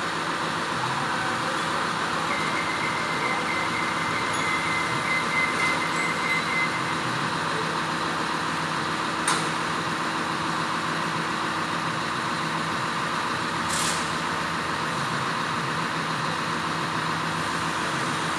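Crane truck's diesel engine running steadily to drive the loader crane's hydraulics. Two short sharp clicks are heard partway through.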